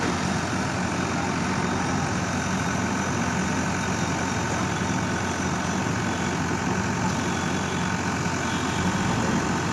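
A bulldozer's diesel engine running steadily, without revving up or down.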